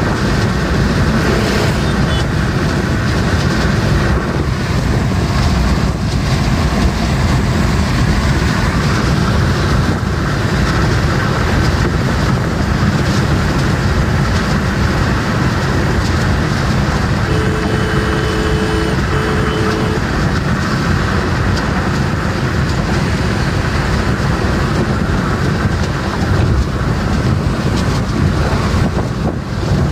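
Steady road and wind noise inside a car cabin at highway speed, with a heavy low rumble. About two-thirds of the way through, a two-tone vehicle horn sounds twice in quick succession.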